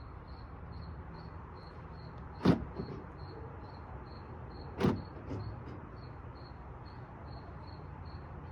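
Two sharp clunks from a Ram 1500 pickup's door latch and locks, about two and a half seconds apart, each followed by a lighter click.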